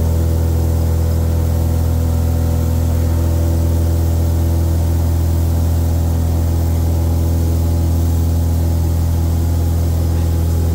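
Republic Seabee's single pusher piston engine running steadily, heard from inside the cabin as a constant low drone that holds the same pitch throughout.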